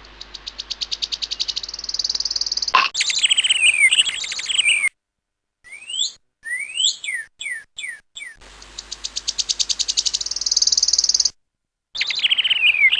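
Bird chirping and tweeting sound effect: a fast high trill of chirps, then falling chirps, then a few separate whistled chirps that sweep up and down. The trill and falling chirps come again about two-thirds of the way in.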